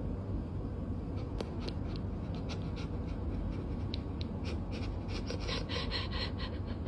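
Cat's fur rubbing and brushing right against the phone's microphone: scratchy rustling and quick ticks over a steady low rumble, growing denser near the end.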